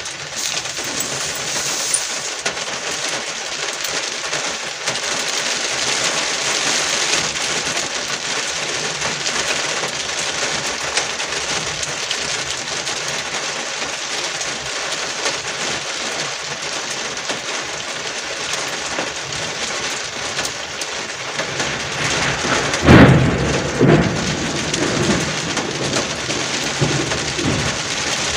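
Heavy rain falling on a car's windshield and roof, heard from inside the car as a steady hiss. About three-quarters of the way through, a sudden loud crack is followed by a low rumble lasting a few seconds.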